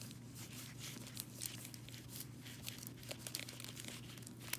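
Stack of trading cards in plastic sleeves and hard holders being flipped through by hand: irregular crinkling, rustling and light clicks of card edges and plastic, over a faint steady low hum.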